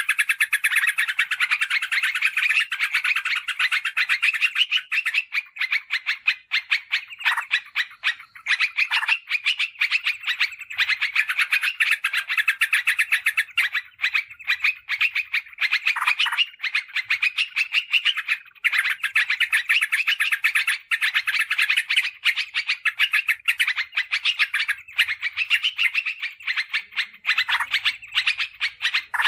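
Yellow-vented bulbul calls: a dense, rapid chatter of notes that goes on almost without pause, broken only by a few brief gaps. It is a lure-call recording meant to draw wild bulbuls.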